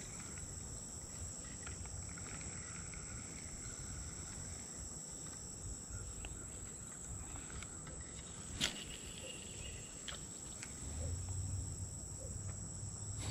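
Insects chirring in a steady, high-pitched drone, over a low steady rumble, with a single sharp click about two-thirds of the way through.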